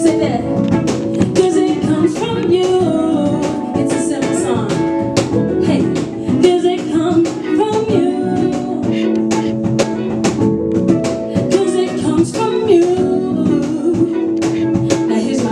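A woman singing lead into a microphone over a live band of guitar and cajon, the cajon keeping a steady beat.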